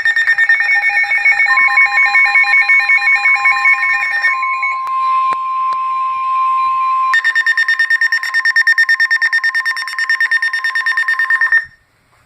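Emergency weather alert tones: loud, rapid electronic alarm beeping, with chirping alert data bursts over the first four seconds and a steady single-pitch warning tone under it from about a second and a half in until about seven seconds. The beeping cuts off abruptly shortly before the end, ahead of the National Weather Service warning message.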